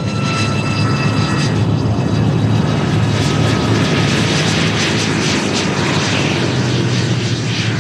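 L-39C Albatros jet trainer's single Ivchenko AI-25TL turbofan running at taxi power as the jet rolls past close by. There is a steady low rumble with a high whine of several tones for the first second or two, then a rushing exhaust hiss builds as the tail and jet pipe pass.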